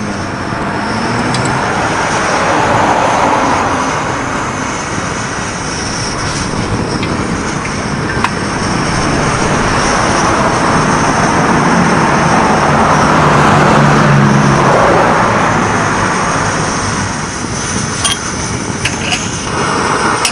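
Kerosene pressure camping stove burning with a loud rushing noise as vaporized kerosene comes out of the burner, the level swelling and fading slowly. The alcohol preheat is still burning, so the stove cannot reach its proper combustion and burns in an uneven, half-way manner.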